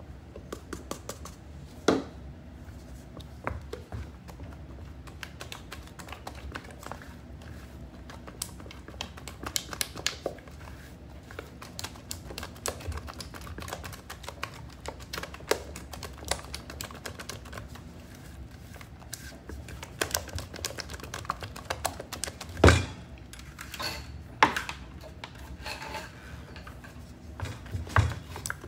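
Wooden spoon mixing flour into thick cake batter in a glass bowl: a steady run of small irregular clicks and scrapes of the spoon against the glass, with a few louder knocks.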